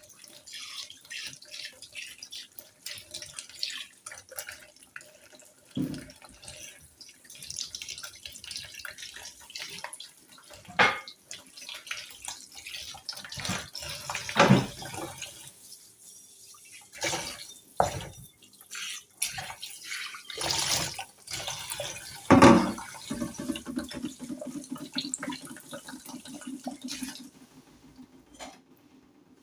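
Kitchen tap running into a sink while vegetables are rinsed under it, the water splashing and changing as they are handled, with several loud knocks against the sink. The water is shut off near the end.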